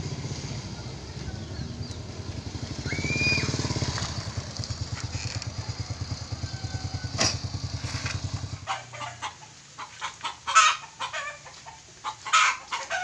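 Small underbone motorcycle engine running as the bike rides up and idles, then switched off abruptly about two-thirds of the way through. After it stops, chickens are heard clucking in a quick series of short calls.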